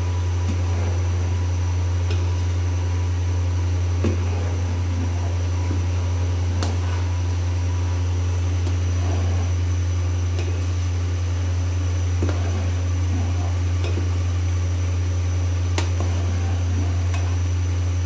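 A steady low hum, with a few faint clicks of a metal spoon against an aluminium pot as soup is stirred slowly.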